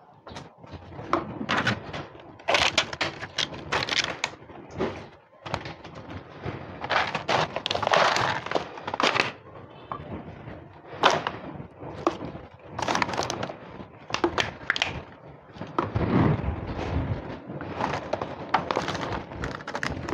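Stray cats eating cat food close by, a long irregular run of crunching and crackling noises, louder at times.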